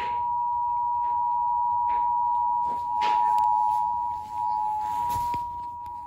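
Emergency Alert System attention signal played through a television's speakers: two steady tones sounding together without a break. It gets louder right at the start.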